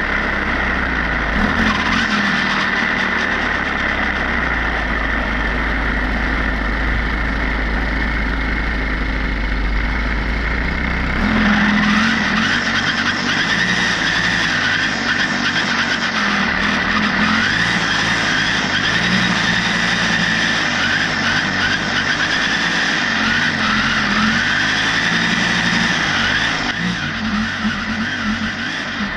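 An engine running continuously. From about eleven seconds in, a whine rises and falls in pitch over it.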